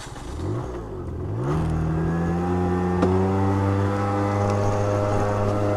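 A CPI Aragon GP 50 scooter's 50 cc two-stroke engine revs up as it pulls away. The pitch rises and dips over the first second and a half, then holds a steady, even drone. There is one short click about three seconds in.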